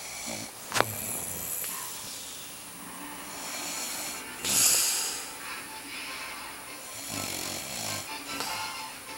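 A man snoring in his sleep: rough snores come every few seconds, the loudest about halfway through, with a sharp click near the start.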